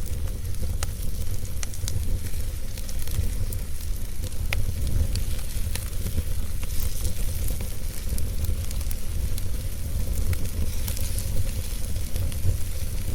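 Wood fire burning, with a steady hiss and scattered sharp crackles and pops, over a steady low rumble.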